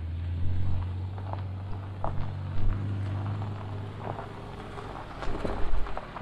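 A car engine running with a low, steady hum while the tyres crunch and knock over rocks and dirt, with a few louder knocks near the end.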